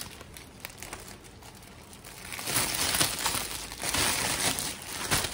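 Clear plastic gift bag crinkling as it is handled and pulled over a filled gift basket, faint at first and much louder from about halfway in.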